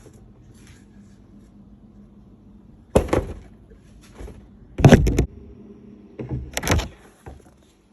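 Three short, loud handling noises, spaced about a second and a half apart, from a new cabin air filter being picked up and moved about while the date is written on it.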